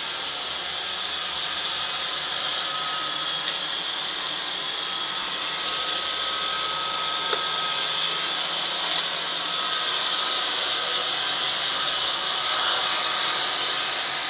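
Roomba robot vacuum running: a steady whirring hiss with a thin steady whine, and a few light clicks.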